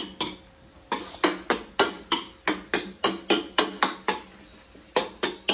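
Metal spatula knocking and scraping against a wok while stir-frying, in quick strokes about three a second, each with a short metallic ring, with two brief pauses.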